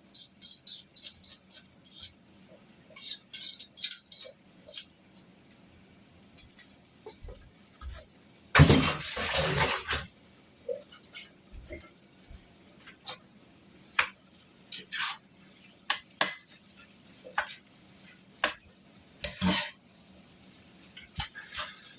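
Metal utensil scraping and clattering in a frying pan of fried rice: quick rows of strokes about four a second in the first few seconds, a louder dense burst of clatter near the middle as the beef and sausage go back in, then scattered clinks over a steady high hiss.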